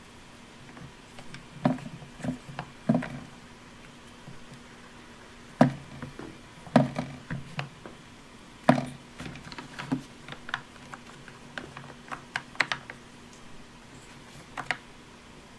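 Plastic toy playset parts clicking and knocking irregularly as hands press Play-Doh into a tooth mould and handle the pieces.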